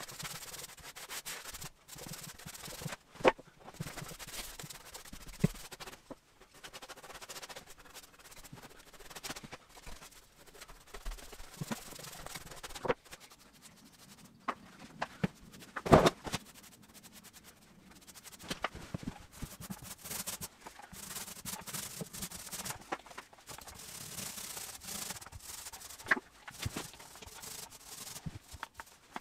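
Paintbrush and paint roller spreading acrylic primer over wood panels: uneven runs of rubbing strokes, broken by a few sharp knocks, the loudest about 16 seconds in.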